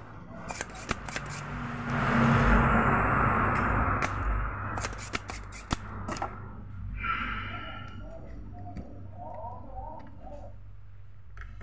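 Sharp clicks and clatter of hand tools working a CRT TV's colour-drive circuit board while transistors are desoldered, with a louder rushing noise lasting about two seconds near the start.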